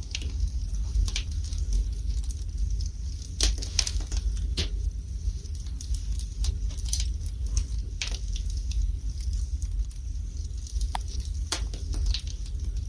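Wood fire burning in a fireplace, crackling with irregular sharp pops about once a second over a low steady rumble.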